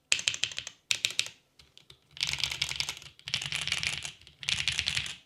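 Fast typing on a plateless GOK Lily R1 60% custom mechanical keyboard with Gateron Dark Burgundy switches and GMK keycaps: rapid keystrokes in bursts separated by short pauses, the runs growing longer from about two seconds in.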